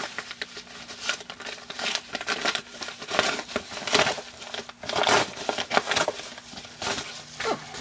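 Mailing packaging crinkling and rustling in irregular bursts as a package is handled and opened by hand.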